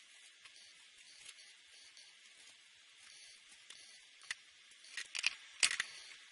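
Winsor & Newton Promarker felt-tip nibs rubbing across paper, a faint steady hiss. A few sharp clicks and scrapes come about four and a half seconds in, the loudest of them near the end, as the marker is handled.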